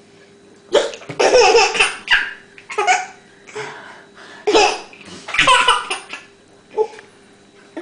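Baby laughing in a series of short, high-pitched bursts, about seven over several seconds, the longest near the start.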